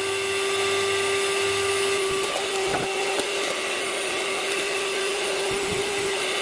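Electric hand mixer running steadily at one speed, its beaters whisking egg and oil into mayonnaise in a stainless steel pot, with a few light knocks about a third of the way in and near the end. The mayonnaise is still thin, with oil being added as it mixes.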